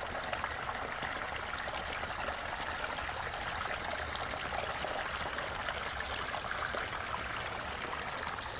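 Water running steadily over a backyard waterfall water feature, an even splashing and trickling.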